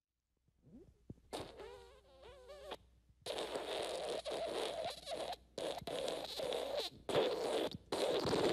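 Fart sound effects: first a short, wavering, pitched one, then a long raspy sputtering one that breaks off and restarts several times.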